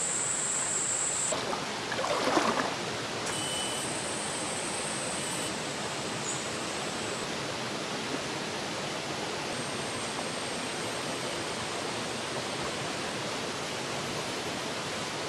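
Steady rush of a shallow rainforest stream running over rocks, with a high, steady insect drone at the start. A brief louder rush comes about two seconds in.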